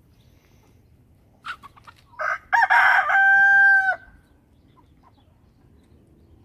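A rooster crows once, about two seconds in: a loud call that ends in a long held note and then stops. A few short clucks from the flock come just before it.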